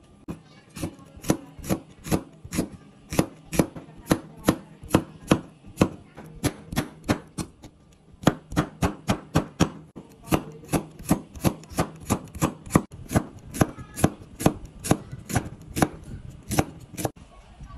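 A large cleaver chopping cucumber on a thick round wooden chopping board: a steady run of sharp knocks, about three a second, that stops shortly before the end.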